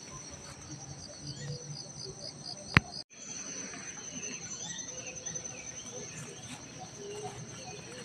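Steady high-pitched insect trilling with scattered short bird chirps. A single sharp click comes just before three seconds in, followed by a momentary dropout.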